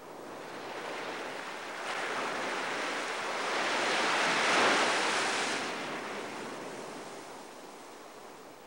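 An ocean wave washing up over a sandy beach: a single wash of surf that swells to a peak about halfway through and then slowly dies away.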